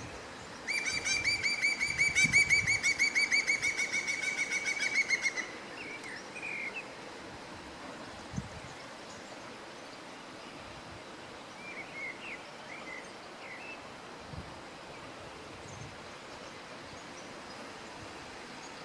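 A bird calling: a loud, rapid run of repeated notes lasting about four and a half seconds, followed later by a few faint short chirps.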